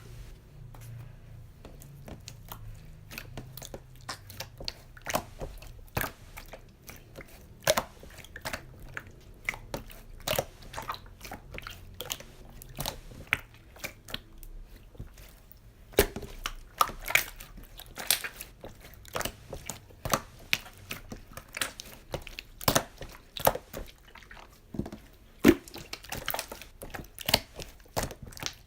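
Slime being squeezed and pressed by hand, making irregular wet clicks and pops, several a second.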